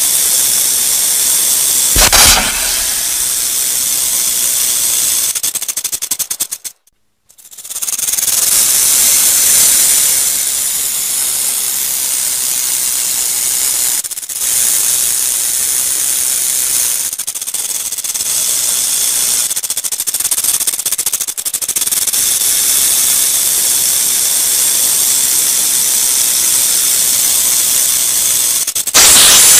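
Rattlesnake rattling its tail: a continuous high-pitched buzz, the snake's warning signal. It breaks off briefly about seven seconds in, and there is a short louder burst around two seconds in.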